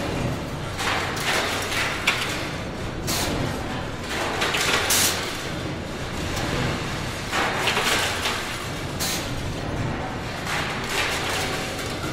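Industrial factory ambience from the basement scrap area of a General Motors stamping plant: a steady machinery hum and rumble with irregular sharp bangs and short hissing bursts every second or two.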